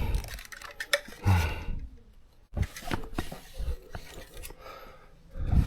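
Electrical cable being pulled and handled out of a wall conduit, giving irregular scraping and rubbing with sharp clicks and a few dull knocks.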